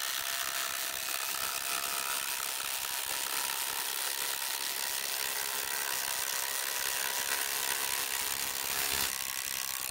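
Two cordless brushless impact drivers, a Kobalt XTR 24V and a Milwaukee M18 Fuel Gen 3, hammering together as they drive long 8-inch T50 screws under heavy load. The sound changes about nine seconds in as one finishes just ahead of the other, then cuts off sharply.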